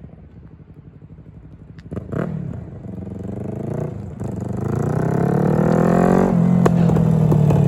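2017 Yamaha R3's parallel-twin engine accelerating hard, getting louder as it comes closer: the revs climb steadily for about two seconds, then drop at an upshift about six seconds in, and the engine runs loud to the end.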